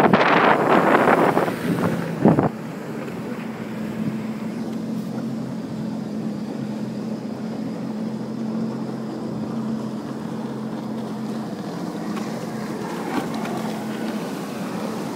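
Loud wind rush on the microphone for about two seconds, then a small watercraft engine running at a steady speed with an even hum.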